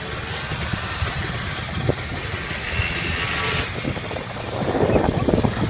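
ATV engines running: one idles close by while another quad putters around at low speed.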